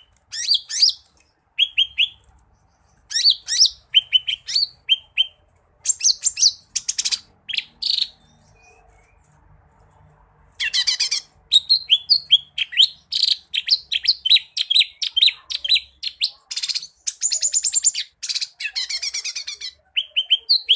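Cucak ijo mini (small green leafbird) singing in full voice: rapid runs of sharp chirps, whistles and trills from its rich mimicked repertoire, broken by a pause of about two seconds midway.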